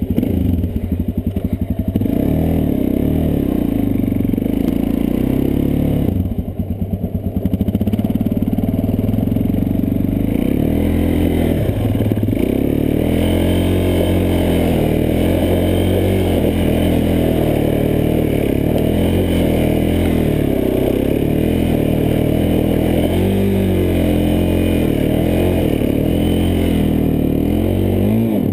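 ATV engine revving up and down as the quad is ridden hard through snow, easing off briefly about six seconds in.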